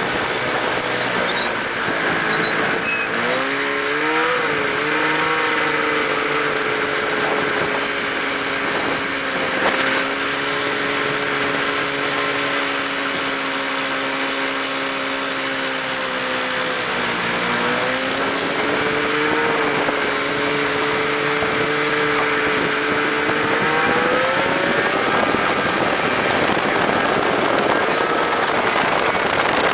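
600cc snowmobile engine driving a mini buggy at a fairly steady speed, with wind and road noise over it. The engine pitch rises early, dips a little past halfway, then climbs again near the end.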